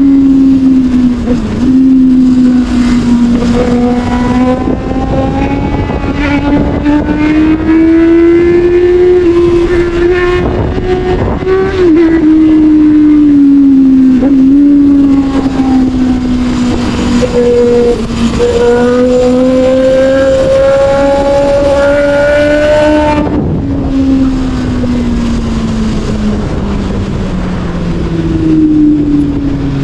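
Sportbike engine running under way at steady high revs, its note rising and falling slowly as the throttle opens and closes, with a sharp drop about three quarters of the way through. Wind rushes over the bike.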